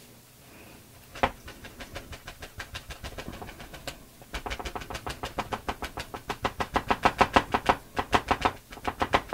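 Quick, steady patting with a damp baby wipe on wet paint on a paper journal page, blending the colours and giving the paint texture. The taps come about six a second and grow louder and more even about four seconds in.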